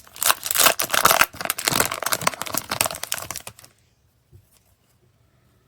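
Foil booster pack wrapper crinkling as it is handled, a dense crackle that stops about three and a half seconds in, followed by a couple of faint taps.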